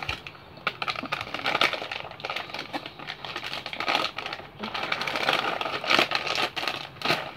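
A plastic snack bag crinkling as it is handled, a rapid, uneven run of crackles.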